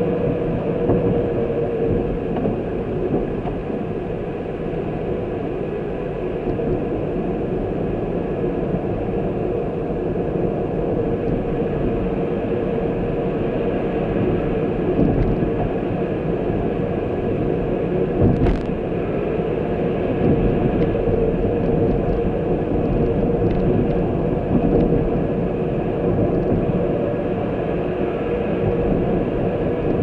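Steady engine and road noise of a vehicle driving along a road, with a constant hum. A single sharp knock comes a little past the middle.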